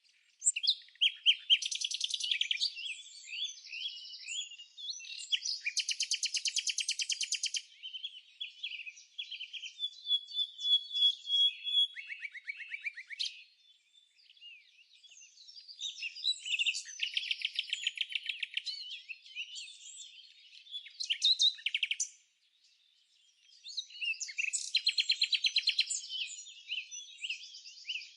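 Songbirds singing: phrases of high chirps and rapid trills, one after another, with short pauses about 14 and 22 seconds in.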